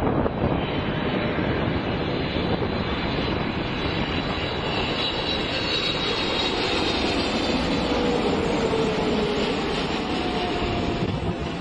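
Boeing 777-300ER's GE90 turbofan engines at approach power, the airliner passing low and close on final approach with landing gear down: a steady, loud jet noise with a high fan whine in the middle and a lower tone that slides down in pitch as it goes by.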